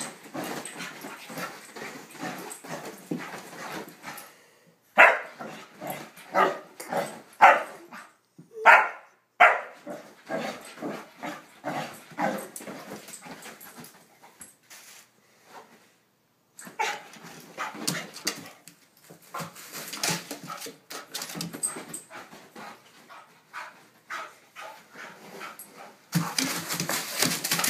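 Small dog barking in short, loud outbursts during a zoomies fit of excited play, with a run of barks about five to ten seconds in, amid scrabbling and rustling on bedding.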